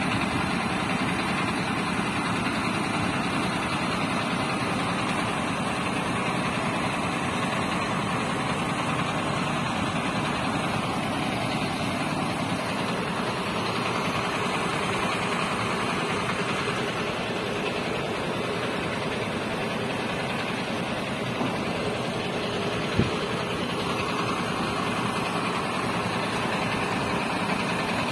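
Steady drone of idling heavy diesel trucks, with a single sharp click about 23 seconds in.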